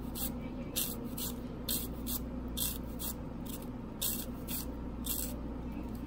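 Knife slicing a red onion half by hand into thin slices. Each cut is a short, crisp hiss, coming about once a second and sometimes in quick pairs.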